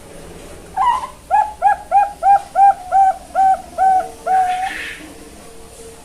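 Young Bangkok-line zebra dove (perkutut) cooing. A first rising note is followed by a run of about nine short clipped coos, some three a second, and ends in one longer held coo. It is a juvenile still learning its song.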